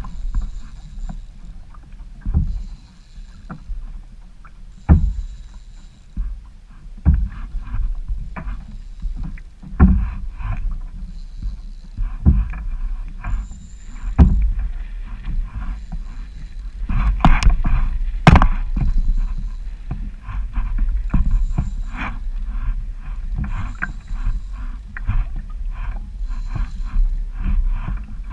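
Kayak on choppy water: knocks and splashes against the hull about every two and a half seconds, over a steady low rumble of wind on the microphone.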